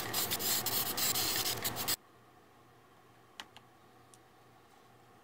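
Aerosol spray-paint can hissing for about two seconds, then stopping abruptly. A few faint clicks follow.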